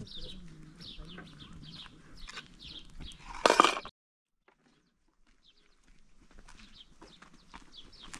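Small bird singing a short falling chirp over and over, about twice a second. About three and a half seconds in, a loud harsh sound lasts half a second; the sound then cuts out for a second and a half before the chirping returns, fainter.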